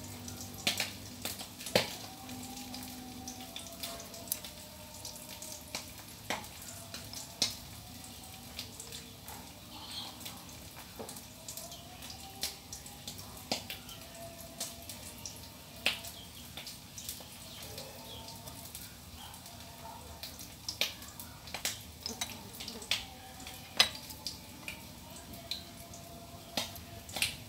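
Kitchen knife blade clicking and tapping against a small ceramic plate as calamansi are cut in half on it, in irregular sharp clicks every second or so, a few louder than the rest.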